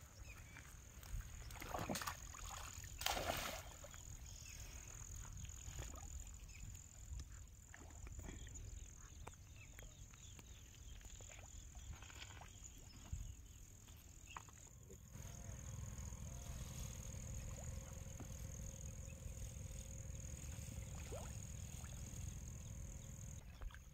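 Water splashing and sloshing as a net bag of fish is lowered into river water, loudest in a couple of splashes about two and three seconds in, over a low steady rumble.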